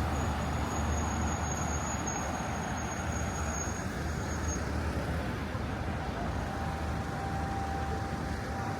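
Steady outdoor road-traffic noise with a low rumble; a thin high tone stops about halfway through.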